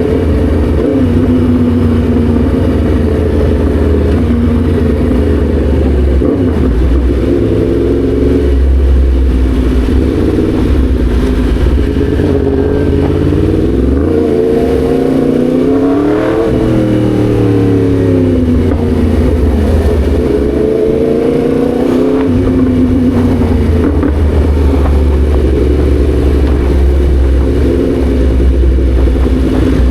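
Yamaha MT-10 SP's crossplane inline-four engine heard while riding, its pitch rising and falling with repeated throttle and gear changes. It climbs to its highest revs about halfway through, then drops away.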